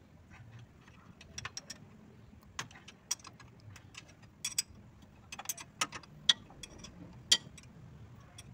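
Irregular metallic clicks and clinks, a few with a brief ring, as a wrench and the mechanic's hands work the bolts of a transmission's steel support bracket. Some come in quick little runs of three or four; the two sharpest come near the end.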